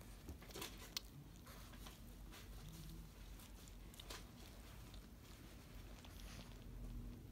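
Pekingese dog nibbling and chewing at a bare foot: faint, scattered mouth clicks and rustling, with one sharper click about a second in.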